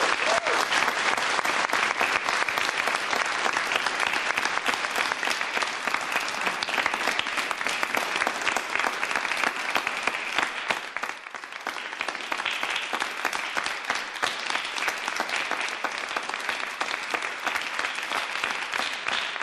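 Audience applauding, many hands clapping at once in a steady dense patter; the applause dips briefly about halfway through.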